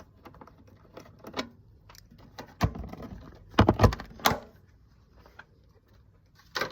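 Small metal clicks and clinks of an Allen key and bolts being worked on a motorcycle's tank fixings, with a cluster of louder knocks about halfway through and another at the end.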